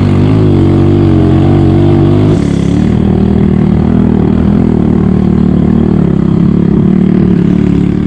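Motorcycle engine running steadily under load as the bike climbs a narrow path, heard from on the bike. Its note shifts a little lower a couple of seconds in.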